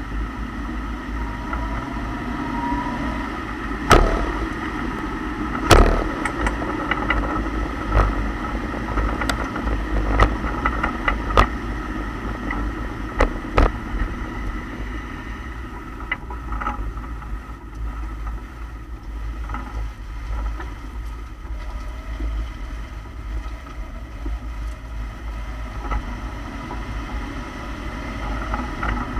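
2008 Lexus IS F's rear differential clunking over the steady running noise of the car: sharp knocks, the loudest about 4 and 6 seconds in, then lighter ones every second or two. The clunks come from worn-out differential pinion and rear bushings letting the differential shift.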